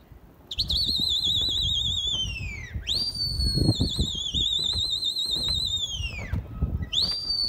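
A pigeon flyer whistling at his flock in the air: three long, loud warbling whistles, each wavering quickly in pitch and dropping off at the end. A low rumble runs underneath.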